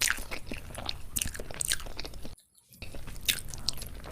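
Close-up chewing and biting of chicken biryani, with many short crisp crunches and wet mouth clicks, cut off briefly about two and a half seconds in.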